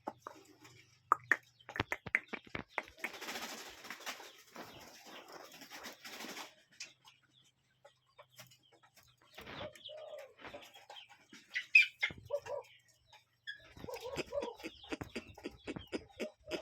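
Birds calling in short, low notes, with a brief higher chirp, among many small clicks and a few seconds of rustling early on.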